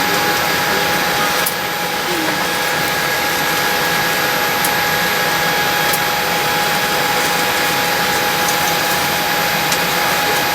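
Steady air-conditioning hiss in the cabin of a Boeing 787-8 airliner, with a few steady hum tones underneath and some faint clicks.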